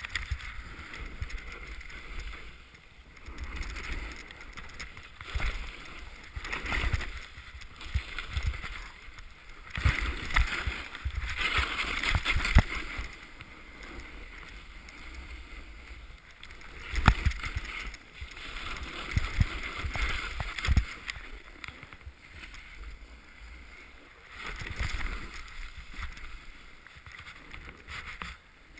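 Edges scraping and hissing across packed snow in a series of turns down a ski run, swelling and fading every second or two. Low wind buffeting runs underneath, with a few sharp clicks about two-thirds of the way through.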